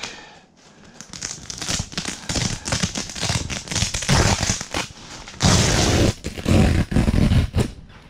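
Crinkly rustling and tearing of ice-tent fabric as a window cover is pulled off by hand. It comes in repeated crackling bursts, loudest in the second half.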